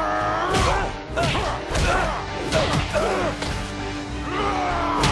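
Dramatic score music under a fist-fight: several heavy punch and impact hits land over it, one after another in the first three seconds and a sharp one near the end.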